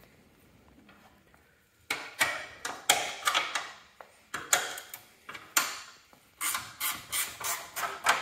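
Hand socket ratchet clicking in short, irregular strokes as 1/4-inch bolts are worked loose, starting about two seconds in.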